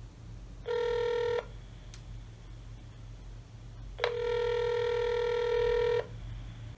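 Ringback tone of an outgoing phone call heard through a smartphone's speaker: a short ring about a second in, then a full ring of about two seconds, the called line ringing and not yet answered.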